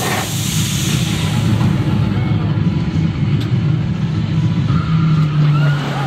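Top Thrill Dragster roller coaster train on its launch track, a loud, steady low rumble of the ride machinery. A steady hum joins about five seconds in.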